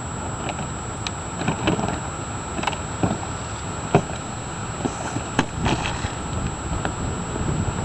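Hard panels of a white folding boat knocking and clacking now and then as it is unfolded on the water, over a steady background hiss with a faint constant high whine.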